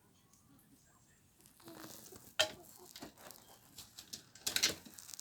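Domestic poultry moving about, with light rustling and scattered sharp taps. One loud tap comes about halfway through and a quick cluster near the end.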